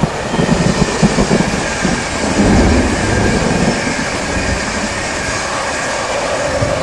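Electric InterCity 225 passenger train passing at speed: the wheels clatter over the rail joints in the first few seconds, then the sound settles into a steadier rush with a rising whine near the end as the Class 91 locomotive at the rear goes by.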